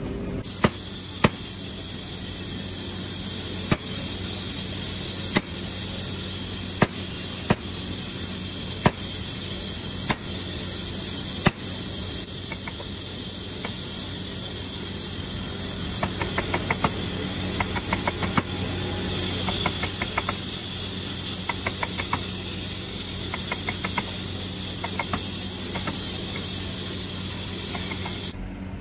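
Sharp knocks of a wooden mallet striking a wood chisel as it cuts hinge recesses into a hardwood frame. In the first half the strikes come singly, about one to two seconds apart, and from about halfway a quicker run of lighter taps follows. A steady machine hum runs underneath.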